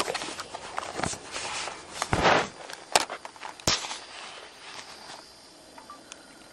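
Handling noise as a camcorder is passed over and a GoPro is set up: a run of knocks, clicks and rustles, with two sharp clicks about three seconds in. It then goes quieter.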